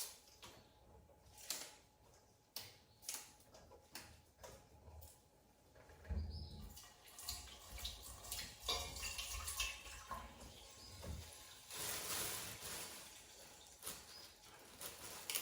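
A few light clicks and knocks of kitchen handling. Then, about six seconds in, water starts running from a kitchen tap and splashes in the sink as food is washed.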